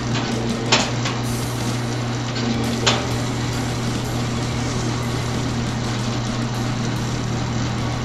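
Model 945 wire stripping machine running with a steady motor hum and mechanical clatter. Two sharp knocks come through it, about a second in and again near three seconds.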